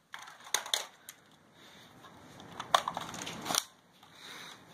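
A few scattered crunches and sharp clicks over a faint rustling noise.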